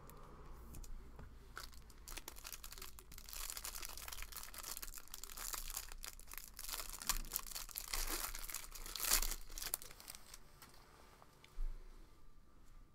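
Trading-card pack wrapper being torn open and crinkled, with a dense crackling that swells in the middle and one short sharp crinkle near the end.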